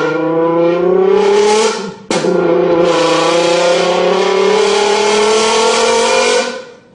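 A buzzy, horn-like pitched tone made with a bottle, in two long notes: the first stops about two seconds in, and after a brief gap the second is held for about four seconds, slowly rising in pitch before cutting off near the end.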